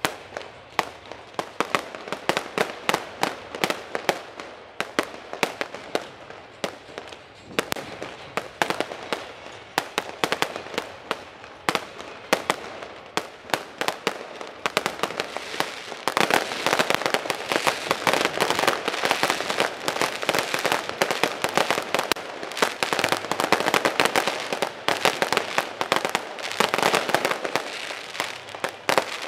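Aerial fireworks display: a quick run of bursting shells and crackling bangs. About halfway through it thickens into a dense, nearly continuous barrage.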